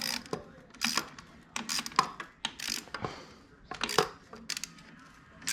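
Irregular metallic clinks and clicks of a starter motor being fitted and bolted onto the engine, with hand tools working against metal.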